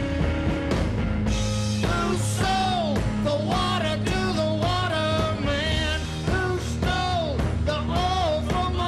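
Live rockabilly/roots-rock band playing an instrumental passage: a lead line with bending notes over double bass and drums, most likely the electric guitar.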